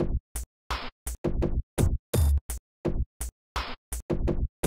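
Electronic trip-hop backing music: a drum-machine beat chopped into short, abrupt stabs with dead silence between them, several hits a second.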